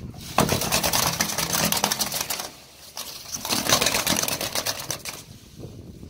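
Stiff bristle chimney brush on a pole scraping against the walls of a clay flue liner as it is pulled up, in two pulls of about two seconds each with a short pause between.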